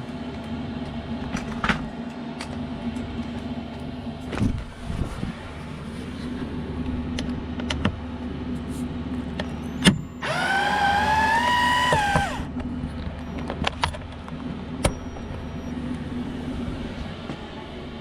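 Small electric motor whirring for about two seconds, its pitch rising slightly, among scattered clicks and knocks of hands-on work; a steady low hum runs underneath.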